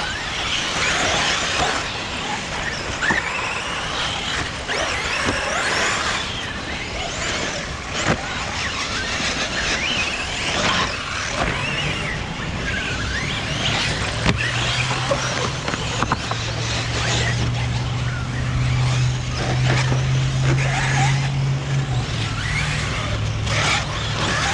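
Electric 1/8-scale RC truggies and buggies (Tekno ET48 2.0 and EB48 2.0) lapping a dirt track: brushless motors whining up and down in pitch with the throttle, with a few sharp knocks along the way. From about halfway through, a steady low hum runs underneath.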